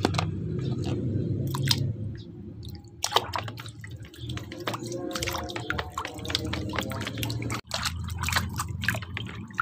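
A hand swishing and rubbing in a plastic basin of water, washing toys, with many small splashes and drips, thickest in the second half.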